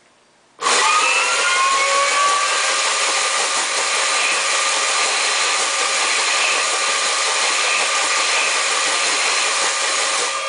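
Homemade Z-6 rotary blaster cannon prop switched on: an electric motor spins its barrel cluster, cutting in suddenly about half a second in with a high whine that rises briefly, then runs with a loud, steady whirring hiss.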